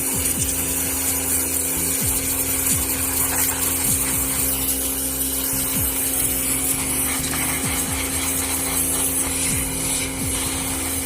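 Pressure washer running: a steady hum from the machine under a constant high hiss of the water jet.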